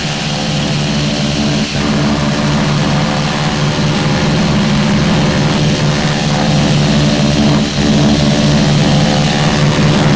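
North American T-6 Texan's Pratt & Whitney R-1340 nine-cylinder radial engine at takeoff power, heard from inside the cockpit, its steady drone growing louder as the takeoff roll begins.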